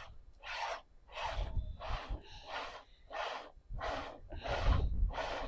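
Streams of goat's milk squirting by hand from the teat into a partly filled plastic bottle, a hissing spurt about twice a second.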